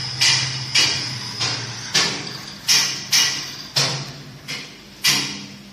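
A series of about nine sharp knocks, roughly two a second, each ringing out briefly, over a low steady hum.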